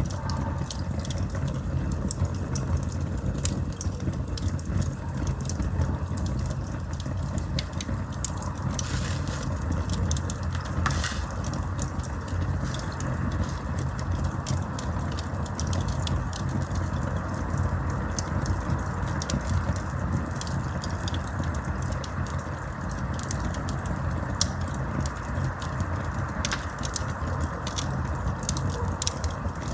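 Wood campfire burning: a steady low rumble of flames with frequent small crackles and a few sharper pops, about 9, 11 and 26 seconds in.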